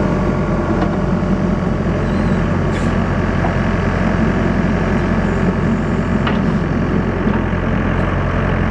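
Engine of a skid steer loader carrying a backhoe attachment, running steadily at a constant speed, with a few faint clicks.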